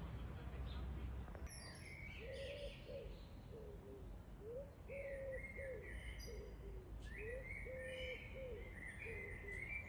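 Birds singing outdoors. From about a second and a half in there is a run of repeated low, arching notes, with higher chirps over them, above a faint low background rumble.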